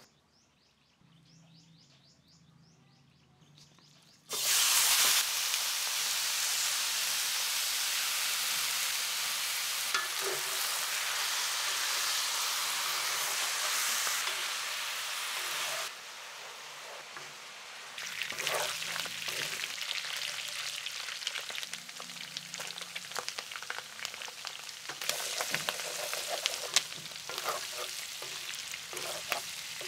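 Chunks of pork sizzling in a hot stainless steel pan. The hiss starts suddenly and loud about four seconds in as the meat hits the pan. In the second half a wooden spoon clicks and scrapes against the pan as the pieces are stirred and browned, with the sizzling going on underneath.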